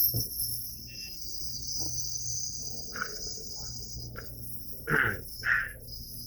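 Steady high chirring of crickets throughout. About five seconds in, a man gives two short dry coughs half a second apart, the hard, throat-hurting cough of an asthma flare.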